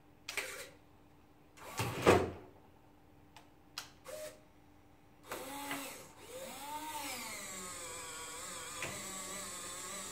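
Servo winch on a radio-controlled scale crawler: a few short bursts of noise as the truck lets down on the freespooling line, then about five seconds in the winch motor starts with a whine that rises and falls in pitch before settling into a steady whine as it reels the truck back up the ramp.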